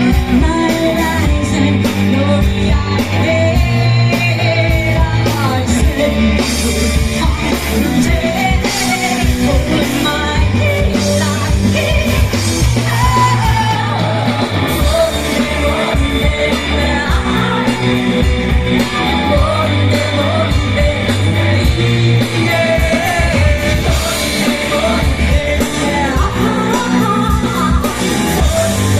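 A live band playing a song with a singer, loud and dense throughout.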